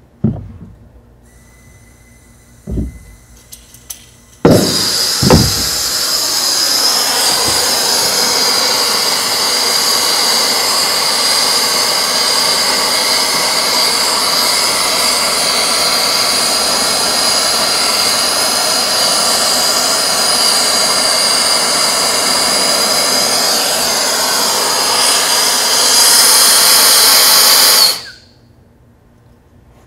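Air-acetylene torch with a number 3 tip: after a couple of knocks it lights about four and a half seconds in and burns with a loud, steady hiss while heating an aluminum coil for brazing with alloy rod. It gets a little louder near the end, then cuts off suddenly when the gas is shut.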